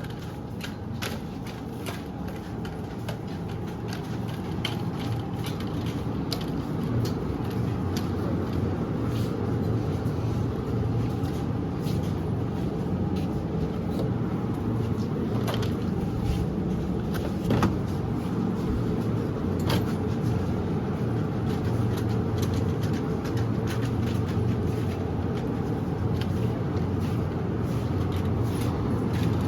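Steady low rumble of a road vehicle, growing slowly louder, with scattered light clicks and knocks.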